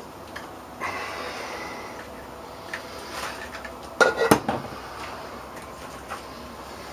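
Clatter and scraping of metal parts and tools being handled, with a loud burst of several sharp metallic knocks about four seconds in.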